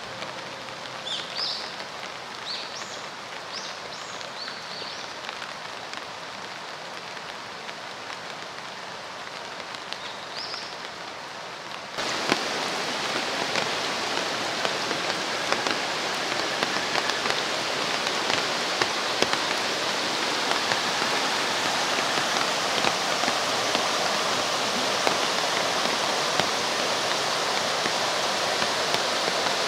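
Steady rain falling in woodland, with a few short bird chirps in the first seconds and once more near ten seconds. About twelve seconds in, it switches abruptly to the louder, steady rush of a rain-swollen stream running fast over stones.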